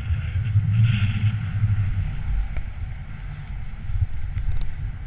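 Airflow buffeting a GoPro action camera's microphone in paraglider flight: a loud, gusting low rumble that swells about a second in and eases again.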